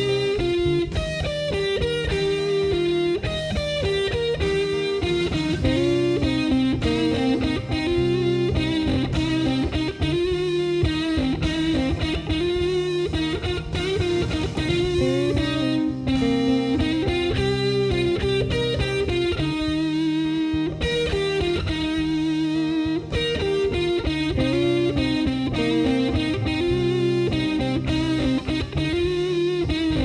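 Instrumental break of a rock song: an electric guitar with light distortion plays a lead melody of bent and wavering notes over a steady low backing and drums.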